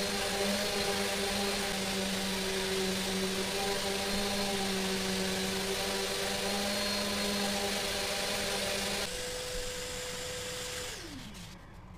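A workshop machine motor running steadily with a hum and a hissing rush. About nine seconds in its sound changes, and over the next two seconds it winds down to a much lower level.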